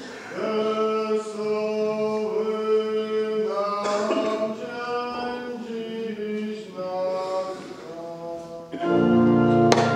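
Voices singing a hymn in church, in long held, chant-like notes. About nine seconds in the singing swells louder and fuller, with a few sharp clicks near the end.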